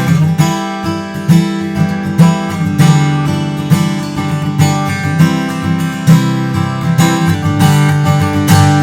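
Taylor 324e mahogany-top acoustic guitar being strummed in a demo, with repeated chord strokes. A last chord is struck near the end and left to ring out.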